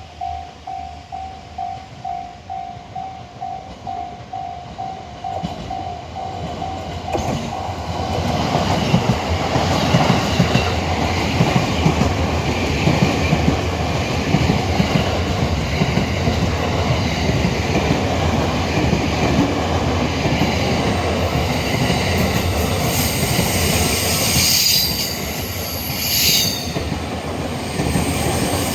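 Japanese level-crossing warning bell ringing in steady pulses about twice a second. From about eight seconds in, a JR Utsunomiya Line train passes close by: a loud, steady rumble of wheels on rails with clatter, and high wheel squeal near the end that drowns out the bell.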